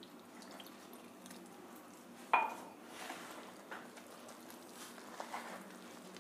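Hands mixing and pressing flour dough for pizza in a plastic bowl, faint and soft. About two seconds in, one sharp, ringing clink of a ceramic mug being set down.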